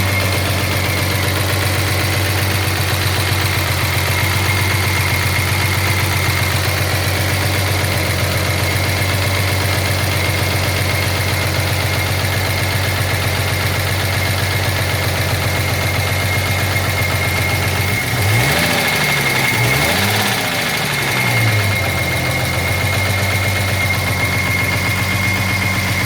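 1983 Jaguar XJS V12 engine idling with a knock, which the owner assumes is a dropped valve seat. It is revved briefly twice about two-thirds of the way through, then settles back to idle.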